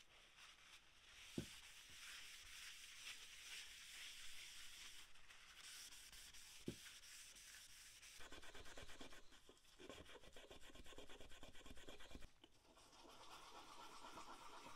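Faint scrubbing on the wooden body of an old wooden jack plane as the grime is cleaned off, a steady hiss that turns into quick back-and-forth strokes a little past halfway. Two soft knocks, about a second and a half in and again about halfway through.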